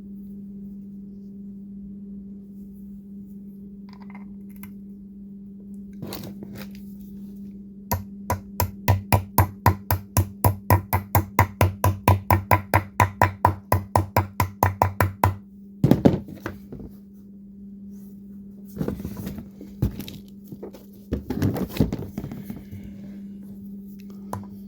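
Hammer striking a 19 mm socket to drive a wheel bearing into a minibike rim, metal on metal: a fast, even run of about four taps a second for some seven seconds, then a heavier knock and a few more scattered knocks.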